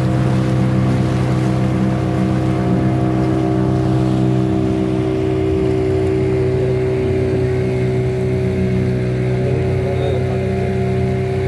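Motor boat's engine running steadily under way, heard from aboard, with a hiss of water and wind over it.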